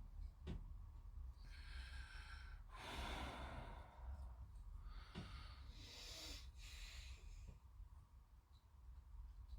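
A person breathing out through the nose close to the microphone, three or four faint breaths over a low steady hum, with a couple of light clicks as plastic kit parts are handled and fitted.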